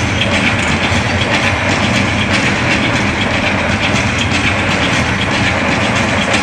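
Loud, steady arena din during a live acrobatics act: show music with a steady low bass under audience applause and crowd noise.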